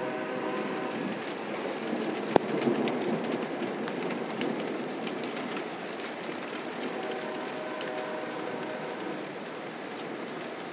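Rain falling steadily with many small drip ticks, and one sharp tap about two seconds in. A faint droning, horn-like tone sounds near the start and again near the end.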